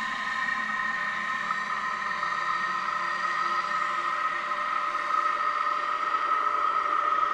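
A steady, layered drone: several held tones between about 1 and 2 kHz over a soft hiss, one tone near 1.2 kHz growing a little stronger after the middle.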